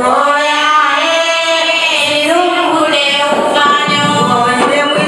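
Voices singing a melody, with long held notes that bend in pitch.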